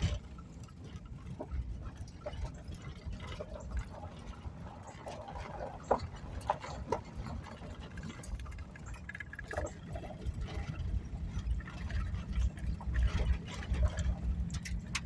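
Van driving slowly on a gravel road, heard from inside the cab: a low rumble with scattered clicks and rattles, growing louder in the second half.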